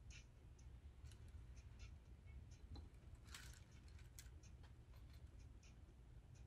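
Faint, irregular metallic clicks and snips of small pliers working metal jump rings, with one longer click a little past the middle, over a low steady room hum.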